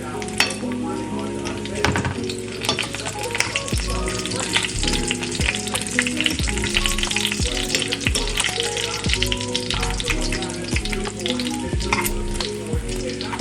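Food frying in a pan, a steady crackling sizzle with scattered pops and clicks, under background music with a regular bass beat.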